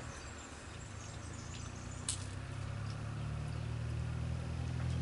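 A motor vehicle's engine running as a low, steady hum that grows gradually louder, with one sharp click about two seconds in.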